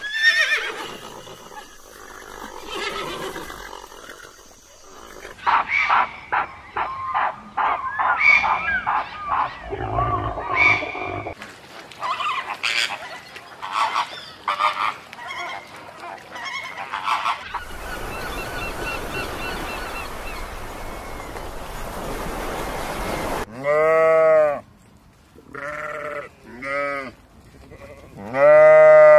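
A string of animal calls: a flock of flamingos honking in many short, overlapping calls, then a stretch of even hiss, then sheep and lambs bleating in several loud, wavering bleats over the last few seconds.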